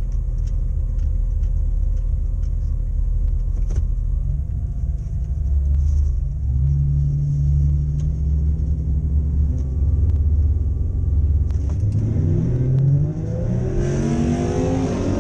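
Holden VS Commodore engine idling low and steady, shifting pitch a little a couple of times, then revving hard from about twelve seconds in, its pitch climbing, with a rush of noise joining near the end.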